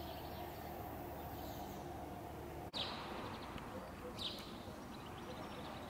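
Quiet outdoor ambience: a steady background hiss with a few short, falling bird chirps, one about three seconds in and another a little past four seconds.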